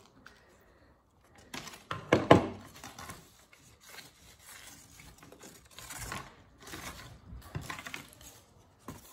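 Stiff construction paper rustling and crinkling as paper strips and paper flowers are handled, with one louder sharp knock about two seconds in.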